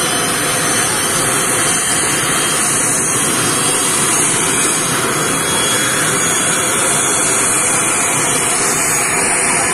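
ATR 72 airliner's twin turboprop engines and propellers running as it taxis in at low power, a loud steady rushing drone.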